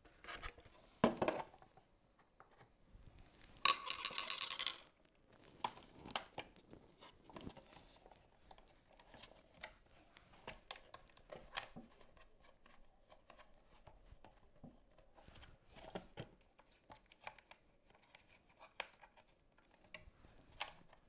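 Hard plastic parts of a laser engraver's hood and covers being handled and fitted: scattered light clicks and knocks, with a louder knock about a second in and a short scraping rattle about four seconds in.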